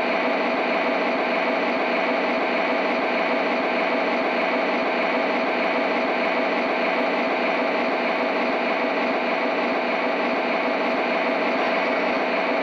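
O scale model train set giving a steady, even running noise with a single held mid-pitched tone through it.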